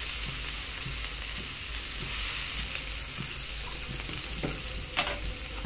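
Chopped tomatoes frying in hot oil with onion and spices in a kadhai: a steady sizzling hiss with small pops, and one sharper click near the end.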